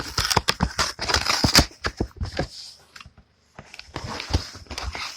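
A parcel being handled and torn open: packaging rustling and crinkling with sharp clicks and knocks, a brief lull about three seconds in, then more rustling.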